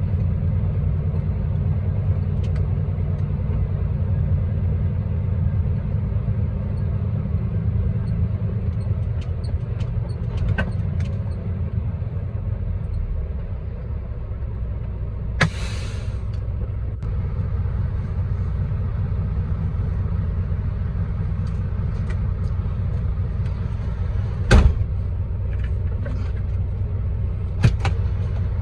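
Diesel log truck engine running steadily, a low rumble heard from the cab. Scattered clicks and knocks come through it, with a short hiss about fifteen seconds in and a sharp knock near twenty-five seconds.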